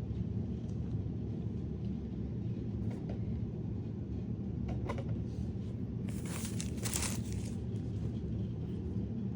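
Packaging being handled: a few small clicks and, about six seconds in, a rustle of crinkling wrapping lasting a second or so. A steady low rumble runs under it.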